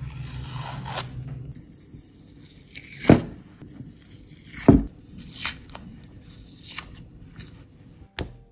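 Masking tape being peeled off a painted stone, a run of short tearing rasps as strips are pulled away; the loudest pulls come about three and about four and a half seconds in.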